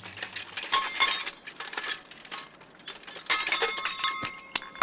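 Cartoon sound effects of a rapid flurry of metallic clinks, clanks and rattles, with some short ringing tones in the second half, as a pile of junk parts is put together into a car.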